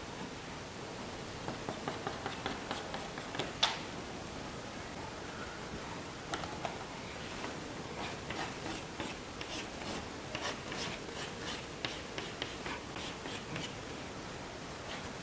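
Chalk drawing on a blackboard: a run of short, uneven scratching strokes, with a sharper knock about three and a half seconds in.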